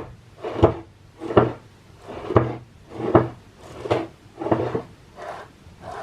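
An HGR20 linear-guide carriage being slid back and forth along its rail, a rolling rattle of its recirculating balls in repeated strokes about every three-quarters of a second, getting softer near the end. The carriage, reballed with replacement balls, now runs without binding.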